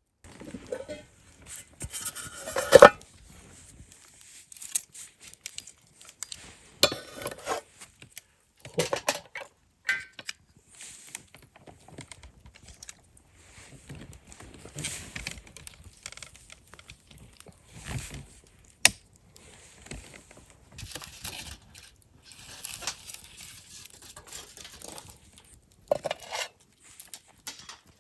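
Irregular clinks, knocks and rustling of camp gear and dishes being handled, with the loudest knock about three seconds in.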